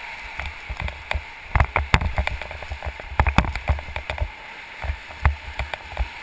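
Whitewater rapid rushing steadily under a raft, broken by many sharp irregular knocks and splashes and frequent low thumps on the microphone.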